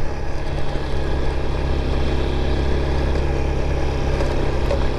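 Motorcycle engine running at a steady pitch while riding, with no change in speed.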